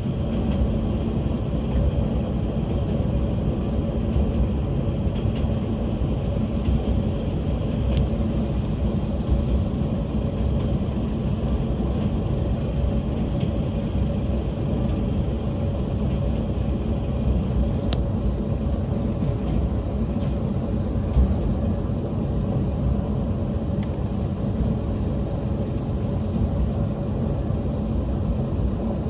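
Diesel railcar running along the line, heard from on board: a steady low rumble of engine and wheels on the rails, with a few faint clicks.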